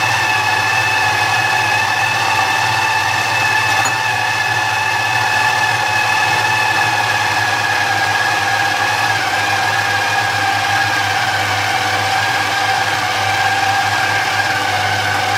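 Small electric food chopper's motor running steadily with a high whine over a low hum, mincing chicken with soaked bread; the pitch sags slightly as it runs, and it cuts off suddenly at the very end.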